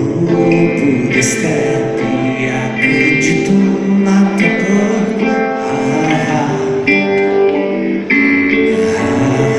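Amplified electric guitar played live, a run of picked melody notes and chords.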